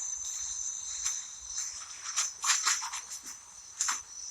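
A steady high-pitched insect drone, with faint rustling and a few light clicks scattered through it.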